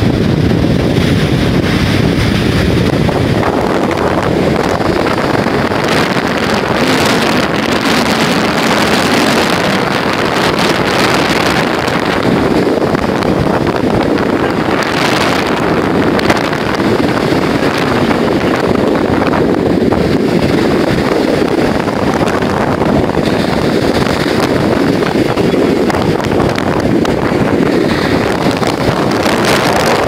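Stormy sea surf breaking and washing up a sandy beach, mixed with strong wind buffeting the microphone in a loud, steady rush.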